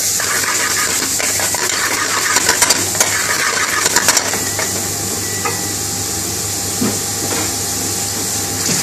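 Prawns frying in a thick curry base in a pan, sizzling steadily while a metal utensil stirs them, with a quick run of clinks and scrapes against the pan about two and a half to four seconds in.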